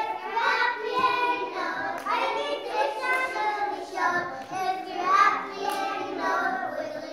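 A group of young preschool children singing a song together.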